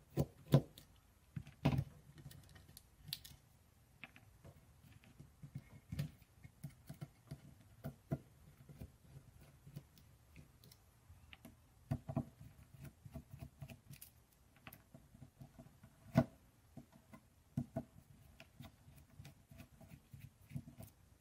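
Irregular small clicks and light metal knocks as screws are backed out of a resin vat's metal frame with a hex screwdriver and set down, the sharpest knocks about half a second in, near two seconds and around sixteen seconds.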